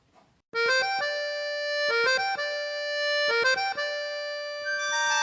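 An accordion playing a short melody in three phrases, each a few quick notes ending on a held note. It starts about half a second in.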